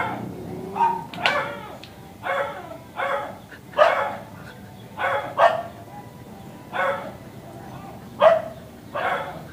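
A small dog barking over and over, about a bark a second with uneven gaps, each bark short.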